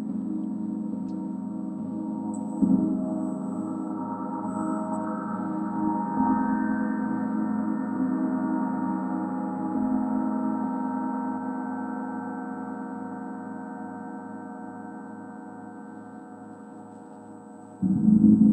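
Gong played with soft strikes a few seconds apart, keeping up a long ringing tone with a slow pulsing beat underneath. The ringing slowly fades over the second half until a louder strike near the end.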